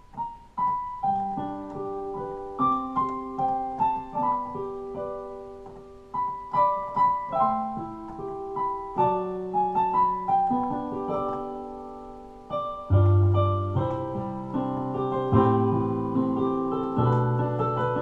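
Piano music: a melody of single struck notes that ring and fade, joined about two thirds of the way through by fuller chords and low bass notes, louder from there on.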